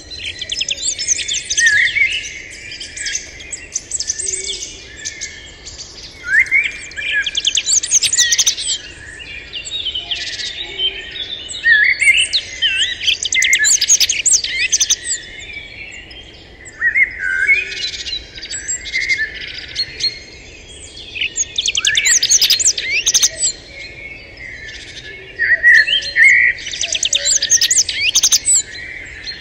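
Birds singing and chirping, several songs overlapping, with fast trills and sweeping notes in phrases of a few seconds separated by short lulls.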